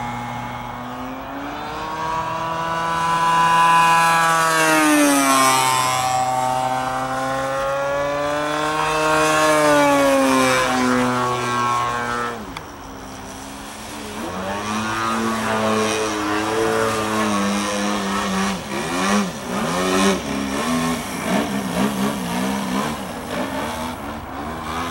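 VVRC 40cc twin-cylinder gas engine of an RC aerobatic plane, exhaust run through a 2-into-1 header into a canister muffler, running in flight; the engine is new and still breaking in. Its pitch rises and falls with throttle and passes. It drops briefly about twelve seconds in, then climbs back and wavers quickly near the end.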